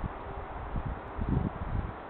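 Wind buffeting the microphone: an uneven low rumble in gusts, strongest a little past the middle, over a steady hiss.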